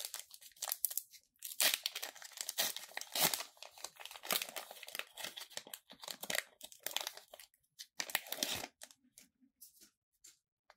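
Foil wrapper of a Pokémon trading-card booster pack being torn open and crinkled by hand: a run of crackly rips and rustles that dies down to a few light clicks near the end.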